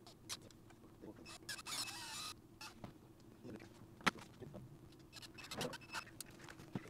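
Cordless drill running briefly, driving a screw through plastic bunk wrap into a wooden trailer bunk board, about a second and a half in. Scattered clicks and knocks of hands and tools on the board and its plastic track come before and after.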